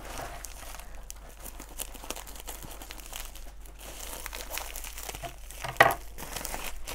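Plastic mailer bag crinkling as it is handled and torn open by hand, with one sharp, louder rip near the end.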